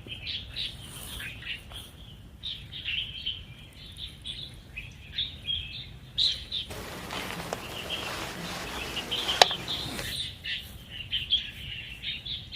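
Small birds chirping and twittering in many short calls. In the middle, a few seconds of even rushing noise rise and fall, with one sharp click.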